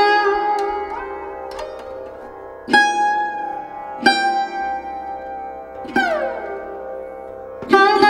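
Slow background music on a plucked string instrument, single notes struck every one to two seconds and left to ring, with a note bending downward about six seconds in.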